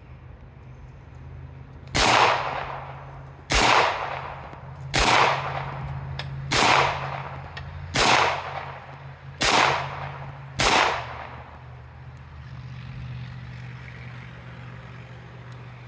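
Benelli B76 semi-automatic pistol fired seven times at a slow, steady pace, about one shot every one and a half seconds, each shot followed by a fading echo.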